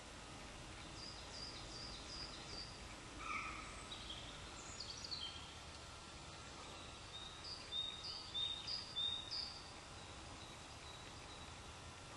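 Wild songbirds calling in short runs of high chirps, with the loudest run of about five notes in the second half. They sing over a steady low background noise.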